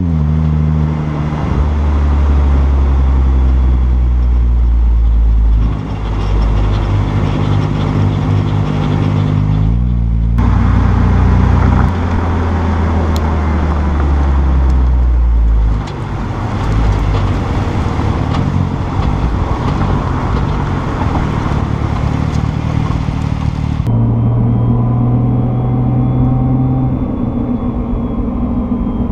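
Nissan GT-R R35's twin-turbo V6 and drivetrain running while the car is driven at low speed, the engine note changing several times as the throttle goes on and off. This is the low-speed on-off-throttle driving in which the owner hears a shuddering drivetrain noise under engine braking.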